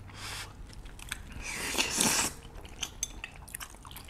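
Sauce-coated noodles being slurped and chewed, with one long loud slurp about two seconds in, then wet chewing with small clicks.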